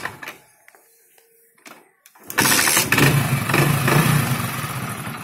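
Hero Splendor Plus's 97cc single-cylinder four-stroke engine being kick-started. It is quiet for about two seconds, then catches and runs loudly before easing off toward idle. Its running note has a strange noise from inside the engine, which the owner takes as the sign the engine is due for repair work.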